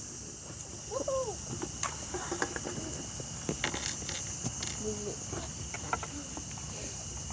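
Steady high-pitched insect chirring, with scattered light knocks and taps over it.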